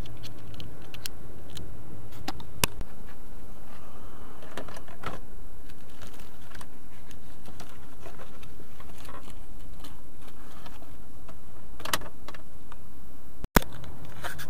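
Small metal tools being handled: scattered sharp clicks and rattles of a screwdriver bit and sockets, over a steady low background rumble.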